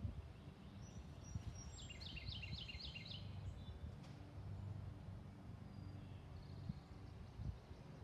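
Outdoor ambience with a songbird singing a quick series of about six repeated high, falling notes about two seconds in, starting again at the very end, over a steady low rumble.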